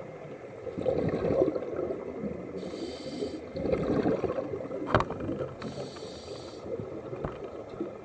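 Scuba diver breathing through a regulator: short hissing inhalations about every three seconds, alternating with longer bubbling exhalations. A sharp click about five seconds in.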